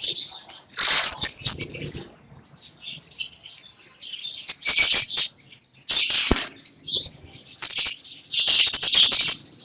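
Indian ringneck parakeets squawking loudly and harshly in repeated bursts, several calls overlapping.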